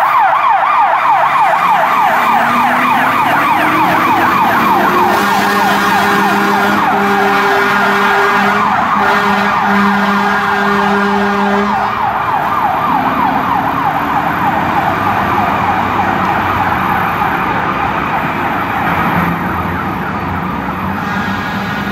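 Fire engine's electronic siren on a fast yelp, with a deeper steady horn tone sounding in long blasts until about halfway through. The siren slowly fades as the engine drives away.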